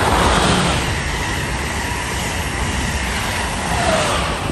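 Amtrak Acela trainset passing at speed close by: a loud rush of wheels on rail and air that peaks as the train arrives and stays loud while the cars go by. A short falling whine sounds near the end.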